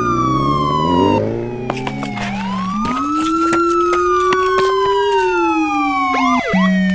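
Police car siren wailing, rising and then slowly falling twice, and switching near the end to a short two-tone hi-lo pattern.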